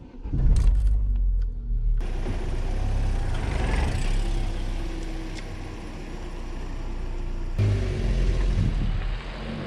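A car running, with a deep, steady rumble of engine and road noise. The sound changes abruptly twice, about two seconds in and again near the end.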